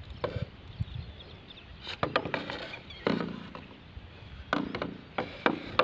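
A string of sharp knocks and clatters from hard plastic sprinkler pipe fittings being handled against a pile of black plastic sprinkler pipes. There is a cluster about two seconds in, another near three seconds, and several more near the end.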